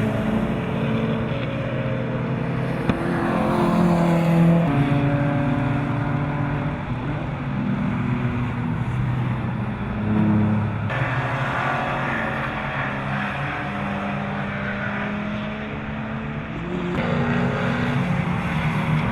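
BMW E30 325i rally car's 2.5-litre straight-six engine running hard, the revs climbing and dropping through gear changes. The sound changes abruptly twice, about 11 and 17 seconds in.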